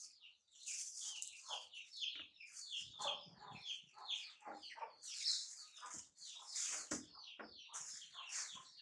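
Birds chirping: a steady run of short, high chirps, each falling in pitch, several a second.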